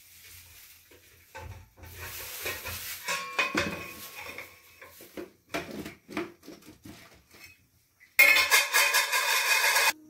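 Steel kitchen utensils clattering and knocking, with short metallic ringing, for several seconds; near the end a loud, steady rushing noise lasts about two seconds and cuts off.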